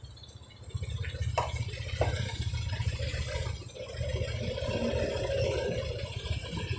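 A vehicle engine running with a low rumble that grows louder a little under a second in. Two short knocks come about one and a half and two seconds in.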